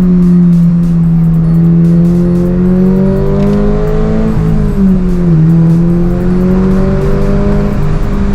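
Subaru BRZ's flat-four engine pulling under load, heard from inside the car. Its steady pitch climbs gradually, drops briefly about four to five seconds in, then climbs again.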